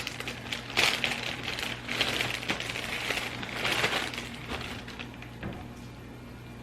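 Packaging rustling and crinkling as a grocery item is handled and turned over, with three louder bursts in the first four seconds, then quieter.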